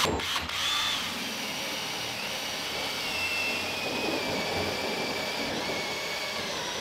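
Cordless drill driving a 2-inch hole saw through the thick polyethylene wall of a rotocast plastic holding tank: a steady whirring grind with a thin whine that drifts in pitch, the cut taking a while because the tank wall is thick.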